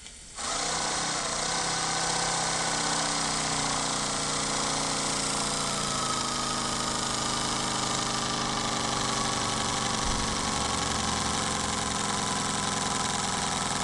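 Model steam tug engine with its feed and condensate pumps starting up about half a second in and running steadily, a hiss of steam over a steady hum. It has just been ordered to run slowly astern.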